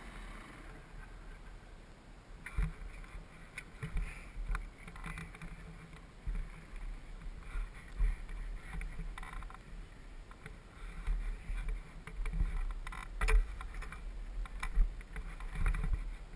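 Low wind rumble and irregular bumps and knocks on a helmet-mounted action camera's microphone as the helmet moves about, with a few sharp clicks.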